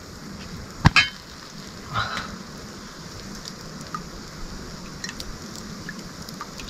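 A steady hiss with a sharp knock about a second in and a short clatter at about two seconds.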